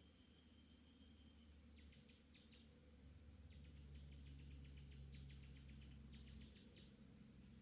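Near silence with faint insect chirping in quick runs of rapid pulses, over a steady high-pitched whine.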